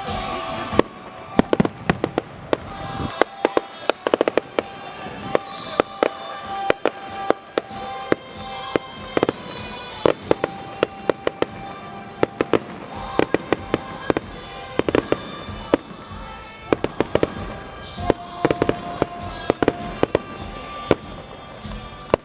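Fireworks display: repeated rapid salvos of sharp bangs and crackles, with music playing steadily underneath.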